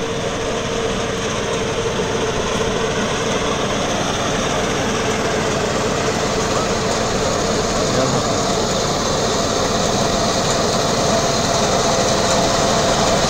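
A walk-behind rice reaper's small engine runs steadily under load as the machine cuts standing paddy, growing gradually louder.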